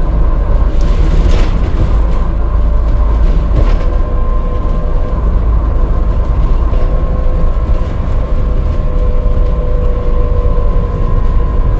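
Inside an Alexander Dennis Enviro400 hybrid double-deck bus at speed: a steady loud rumble of road and drivetrain noise with a faint whine from the axles, as heard at faster speeds. A couple of knocks from the body in the first few seconds.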